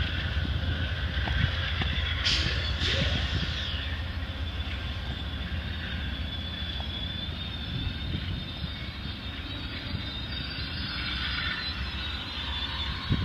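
Amtrak Superliner double-deck passenger cars rolling past, a steady rumble of wheels on rail that eases slightly as the train draws away.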